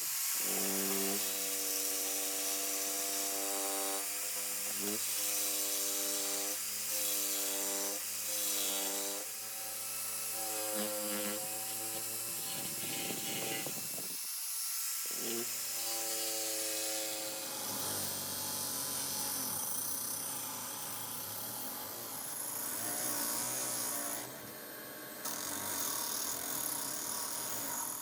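Power tool running on wood: a steady motor whine whose pitch shifts now and then, cutting out for a moment about halfway through. In the second half it gives way to a rough, hissing working noise on the wood.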